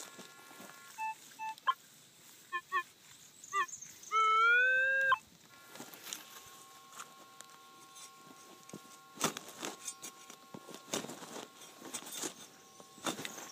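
Minelab CTX 3030 metal detector sounding a few short target beeps, then one longer, louder tone that rises slightly as it starts. Later, a digging tool strikes and scrapes into the soil several times.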